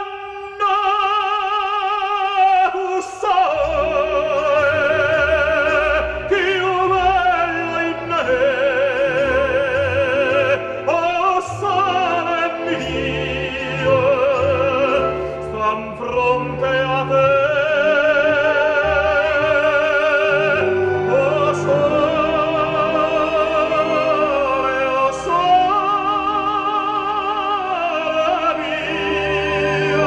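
Recorded operatic singing with strong vibrato over a steady instrumental accompaniment, played back through a Fluxion F-2300A 300B valve amplifier.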